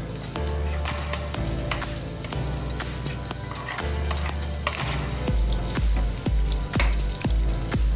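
Sliced onion and curry leaves sizzling in hot oil in a frying pan, with scattered clicks of a spatula stirring them. Background music with a steady bass beat plays underneath, stronger in the second half.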